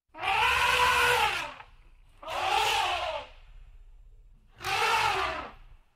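An animal calling three times, each call about a second long and rising then falling in pitch.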